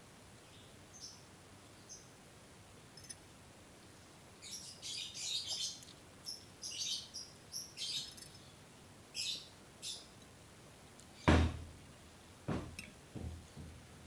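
Birds chirping in short, high bursts for several seconds. About eleven seconds in there is one loud thump, the loudest sound here, followed by a few softer knocks.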